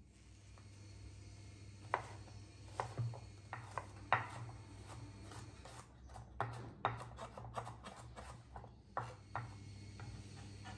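Chef's knife chopping garlic on a wooden cutting board: irregular knocks of the blade on the board, some in quick runs, over a steady low hum.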